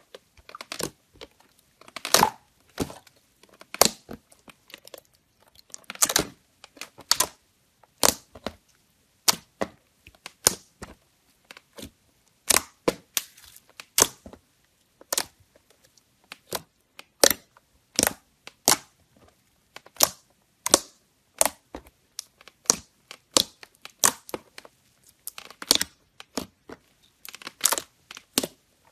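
Hands squishing and pressing a glossy caramel-brown slime, which gives off sharp, irregular pops and crackles, one to several a second.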